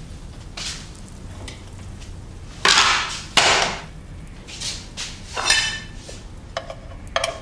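Frying pan and crockery being handled as food is served: a few scraping strokes of a spatula in the pan, then short clinks of plates near the end.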